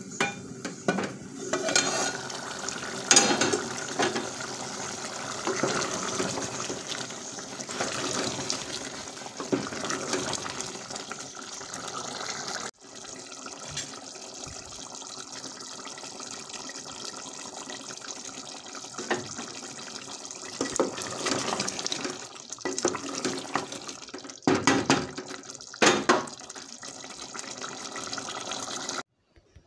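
Kitchen liquid sound, a steady watery noise, with a few sharp clinks of metal cookware.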